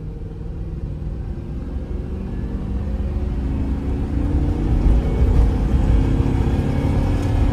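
Chevy Suburban's 5.3-litre V8 accelerating, heard from inside the cab: the engine note climbs steadily in pitch and grows louder as the revs build in one gear.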